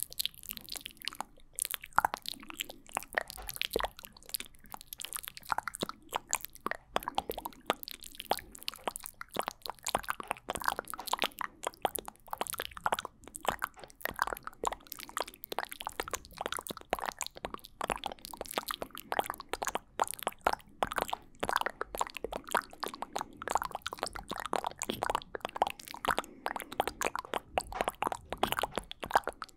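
Layered ASMR mouth sounds made right against a fluffy-covered microphone: a dense, continuous run of quick mouth clicks, several tracks overlapping.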